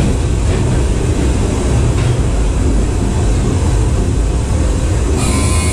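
Ghost train car running along its track in the dark, a steady, loud, heavy low rumble with hiss above it; the hiss drops away near the end.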